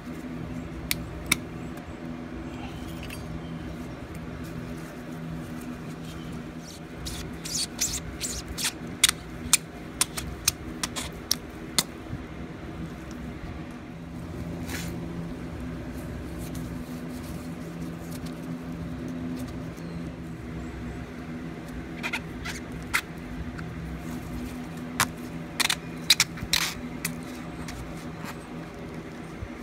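Sharp metallic clicks and clinks of pliers and a spring hose clamp worked on a car's thermostat housing and coolant hose, in two busy clusters with a few single clicks between. A steady low hum continues underneath.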